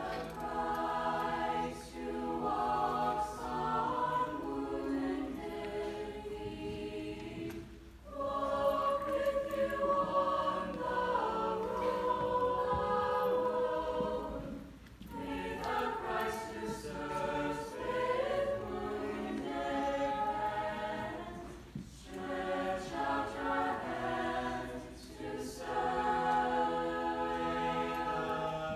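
Mixed-voice high school chamber choir singing, phrase after phrase, with brief breaks for breath between phrases.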